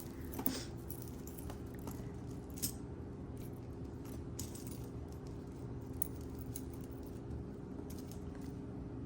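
Small metal costume jewelry (earrings, chains, bracelets) clinking and jangling as pieces are picked through and moved about, in scattered light clicks.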